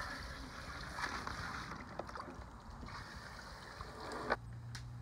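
Water running from a garden hose through a water-balloon filler into a cooler of water, a steady hiss that cuts off suddenly about four seconds in.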